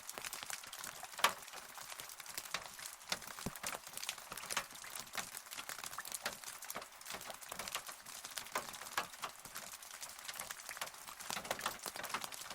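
Rain falling, heard as a steady hiss dotted with many separate drops ticking irregularly on a hard surface, with one louder drop about a second in.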